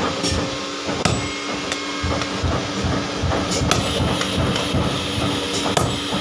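Hand hammers striking red-hot drive-shaft steel held in tongs on an anvil during forging: a handful of separate, irregularly spaced blows.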